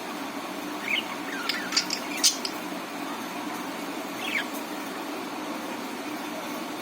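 Budgerigar chirping: a quick run of short chirps about a second in, and one more a couple of seconds later, over a steady low hum.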